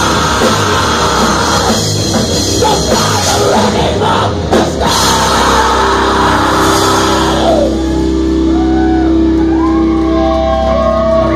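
Live rock band playing loud, heavy music with drums and guitar. About seven and a half seconds in the full band stops and held guitar notes ring on, with wavering tones above them as the song ends.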